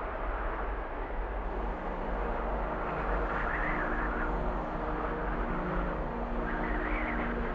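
Freight train of covered coil cars rolling past: a steady rumble and rail noise from the wheels, with several steady ringing tones joining about a second in and a higher ring rising twice.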